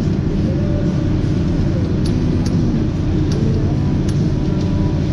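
A vehicle engine idling steadily nearby, with a few light clicks about two to four seconds in.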